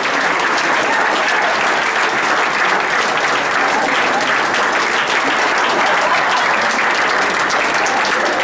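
A crowd applauding steadily: dense, unbroken clapping from many hands.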